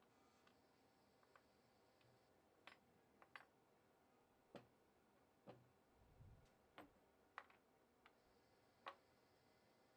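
Faint, irregularly spaced clicks and light taps, about a dozen, with a soft low thud about six seconds in.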